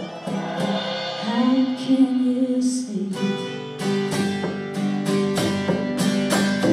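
Live band playing a slow folk song: strummed acoustic guitar with electric guitar, a woman's held sung note about a second in, then a passage of steady, even strumming.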